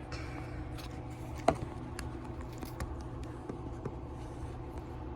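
A phone being handled and repositioned: a few light clicks and knocks, the clearest about one and a half seconds in, over a steady low hum.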